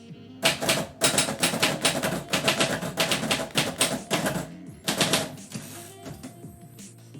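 Typewriter keys struck in a rapid, dense run of clacks lasting about five seconds, ending with a short sliding hiss, over background music.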